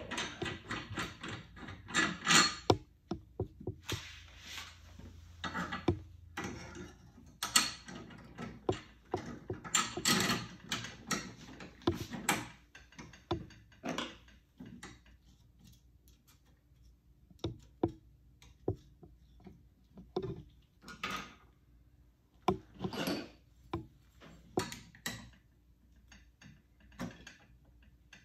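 Irregular metallic clicks, clinks and small knocks of a 1970 Z28 OEM Hurst shifter's small plated steel parts being handled and fitted together by hand, with short quiet gaps between them.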